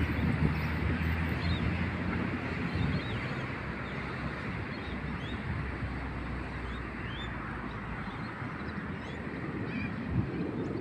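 Outdoor ambience: a steady rushing background with short, scattered bird chirps, and a low engine hum that fades out about three seconds in.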